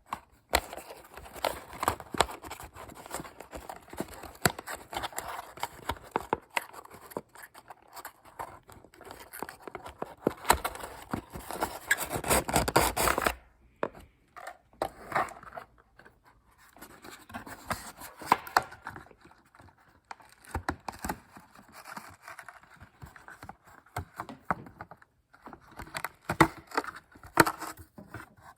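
Toy packaging being opened and handled: scraping, rubbing and clicking of cardboard and plastic. A denser stretch of scraping comes a little before the middle and stops suddenly.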